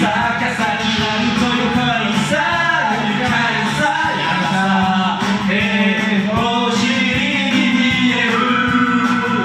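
A man singing a Japanese song into a karaoke microphone over a loud karaoke backing track.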